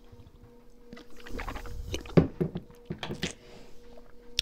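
A person chugging a drink from a bottle: a quick run of gulping swallows with liquid sloshing, starting about a second in and stopping after about two seconds.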